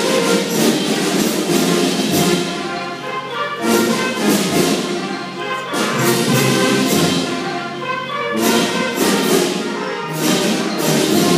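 School band playing a piece with brass and percussion, with several sharp percussion strikes between sustained phrases.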